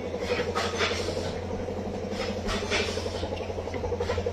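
Electric machinery in a snack-making workshop running with a steady low hum and a buzzing, rapidly pulsing drone, with a few brief scrapes over it.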